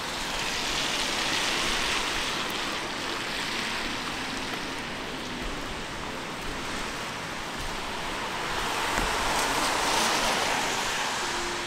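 Steady hiss of rain on a wet city street, swelling twice: about a second in and again near the end.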